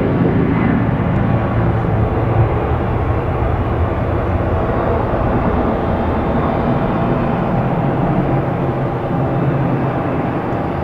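Airbus A330 airliner's twin turbofan engines at approach power on final approach to land: a steady low jet noise that eases slightly toward the end.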